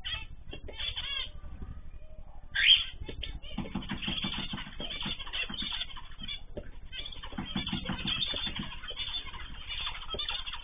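Many small cage birds chirping and calling over one another in quick short notes, with one loud rising call about two and a half seconds in.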